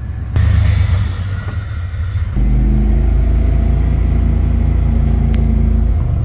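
Ford F-150 pickup's engine running as the truck is driven with its newly replaced clutch. A rougher, noisier stretch over the first couple of seconds changes suddenly to a steady low engine drone.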